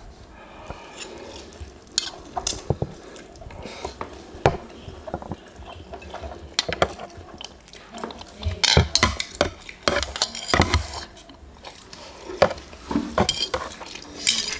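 Two people eating spicy instant noodles: slurping and chewing, with fork and chopsticks clicking on the metal tray and bowl. The sounds are loudest and busiest about two-thirds of the way through.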